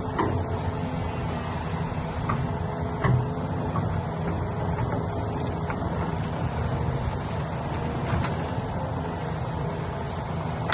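Heavy construction machine's engine running steadily, with a few short knocks and clanks over it, the loudest about three seconds in.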